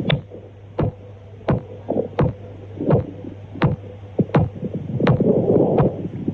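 Pistol-shot femoral sounds (Traube's sign) heard through a stethoscope over the femoral artery: a sharp crack with each heartbeat, about three every two seconds, over a steady low hum. The sound is a sign of aortic regurgitation.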